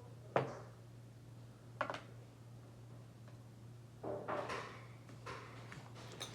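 Handling noises from a padlock being taken apart: two sharp metallic clicks, then a spell of clattering and rustling as parts and tools are moved about, over a steady low hum.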